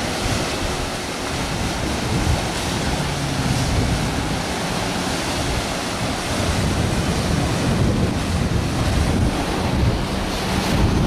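Sea surf washing and breaking over rocks, steady throughout, with wind rumbling on the microphone.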